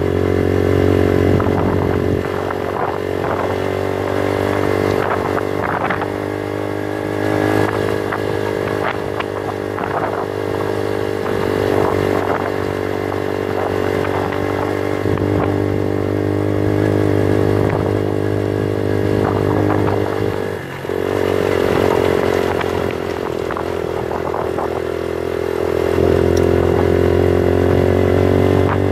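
Bullit Hero 125 motorcycle's 125 cc engine running steadily under way on a loose gravel track, with stones clicking and clattering under the tyres. The engine briefly drops off a little after twenty seconds, then runs louder near the end.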